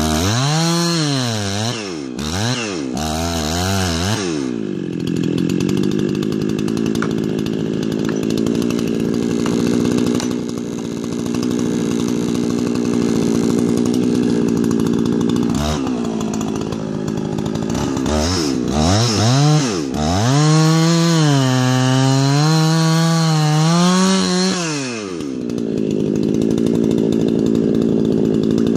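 Two-stroke chainsaw running hard on a large ponderosa pine, its engine pitch swinging up and down as it is throttled and loaded in the cut, steady for long stretches in between.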